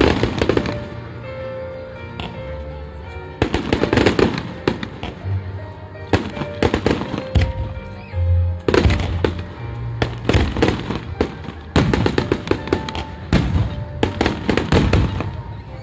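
Aerial fireworks going off in repeated volleys of bangs and rapid crackling, with music playing underneath.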